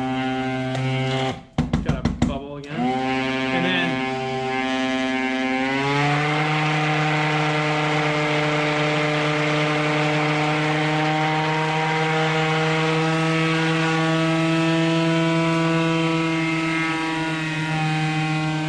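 Handheld immersion blender running in a bowl of chocolate ganache with a steady motor hum. About a second and a half in it cuts out and stutters for a moment, then picks back up, its pitch rising slightly before it settles into a steady hum again. The blender has a damaged wire that makes it 'sound weird sometimes'.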